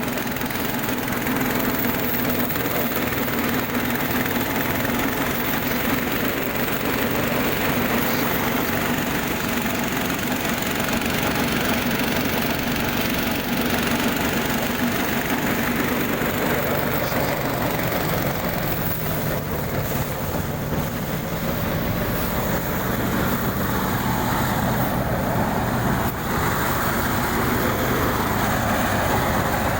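Small engine running steadily, with a slight change in pitch near the end.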